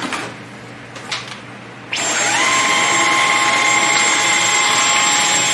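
Dyson V11 cordless stick vacuum switched on about two seconds in: its motor spins up with a brief rising whine, then runs at a steady high whine. A few light clicks come before it.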